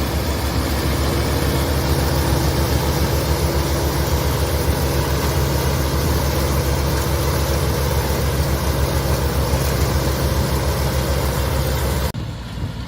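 Massey Ferguson 9500 tractor's diesel engine running steadily under load, loud, with a fast low pulse. About twelve seconds in it cuts abruptly to a quieter engine sound.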